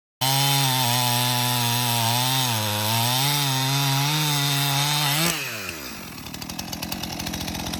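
Power saw running fast, its pitch dipping and recovering as it works. About five seconds in it is let off, the pitch falls, and it drops to a quieter rattling idle.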